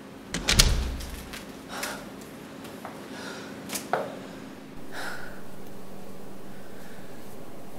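A thump about half a second in, then a woman breathing hard, with a heavy breath every second or so, over a steady low hum.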